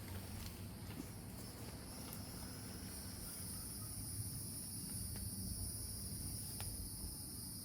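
Insects trilling steadily at a high pitch, growing stronger about three seconds in, over a low background rumble with a few faint ticks.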